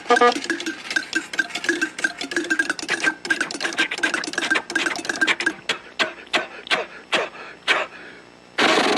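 A fast run of sharp clicks with a steady pitched ring under them, slowing after about five seconds to a few separate clicks. A short burst of hiss comes in just before the end.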